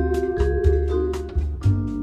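Background music: instrumental guitar music with bass and a steady drum beat.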